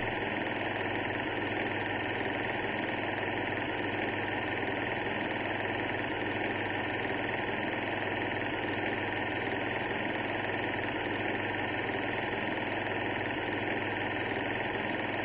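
Steady, unchanging mechanical running noise from the Amiga demo's sound output, even in level throughout.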